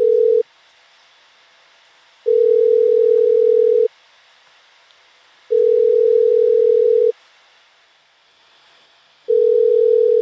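Telephone ringback tone heard down the line: a steady low beep about a second and a half long, repeating roughly every three and a half seconds. It is an outgoing call to emergency services ringing, not yet answered.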